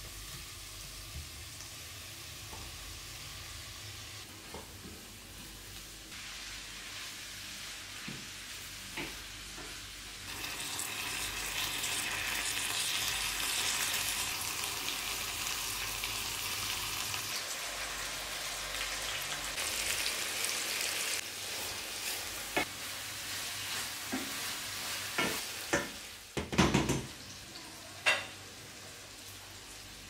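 Food frying in hot oil in a pan: a steady sizzle that grows much louder about ten seconds in and eases off after about twenty, with a few sharp knocks near the end as it is stirred.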